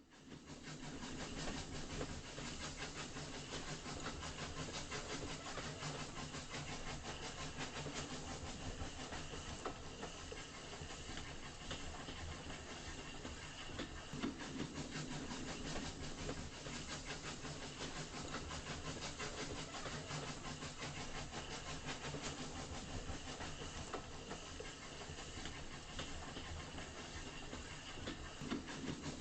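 Diesel locomotive sound from an ESU LokSound v5 decoder in an HO-scale RS-1, played through the model's small speaker: a steady engine rumble with a fine, fast beat and hiss, running evenly throughout.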